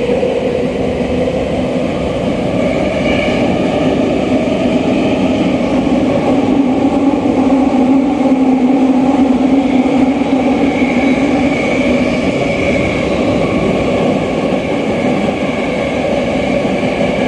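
Tokyo Metro 8000-series subway train running through a tunnel, heard from inside the car: a steady rumble of wheels on rail with a low hum and a faint high whine from the running gear, growing a little louder about halfway through.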